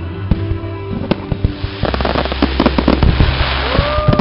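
Fireworks going off: a run of sharp bangs and crackles from bursting aerial shells, growing denser after about two seconds, with music underneath. Near the end a tone rises and falls.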